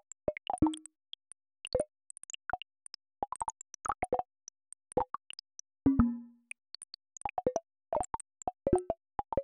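Sonified earthquake data: an irregular scatter of very short blips at many different pitches. Each blip marks one earthquake, and its pitch is set by the quake's magnitude. Twice, just after the start and about six seconds in, a lower tone rings for about half a second.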